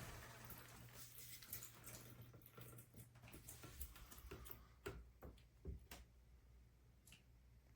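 Faint, fading hiss of water from a shower, then about five sharp, sparse ticks in the second half.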